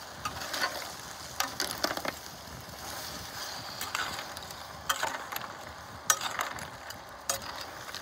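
Slotted metal spatula stirring whole shrimp in their shells and diced vegetables in a large clay cazuela: irregular clicks and scrapes of metal on shells and pot, over a steady frying sizzle.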